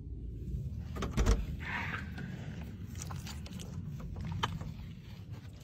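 A door being handled, with a heavy thump about a second in, then light clicks and handling noise over a low rumble.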